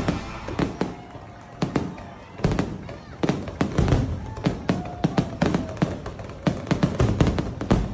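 Fireworks finale: aerial shells bursting overhead in a rapid, irregular string of bangs and crackles, coming thicker near the end.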